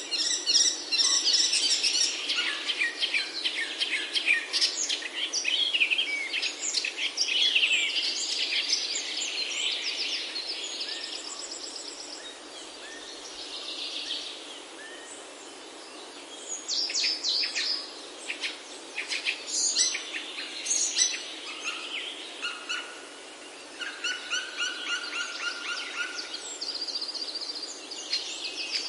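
Birds chirping and singing in quick, repeated chirps and trills. They are busy in spells, with a quieter stretch around the middle.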